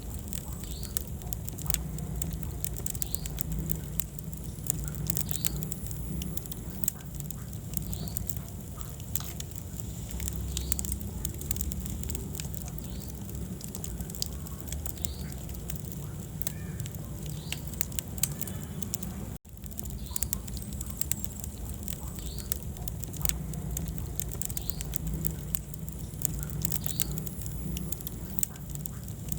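Wood fire crackling in a fireplace: many sharp pops and snaps over a low, steady rumble of the flames. The sound cuts out for an instant about two-thirds of the way in.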